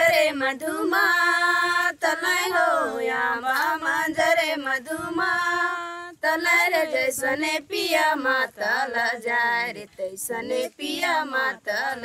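A female voice singing a tribal folk melody alone, without instruments, in long held, wavering notes, with short pauses between phrases.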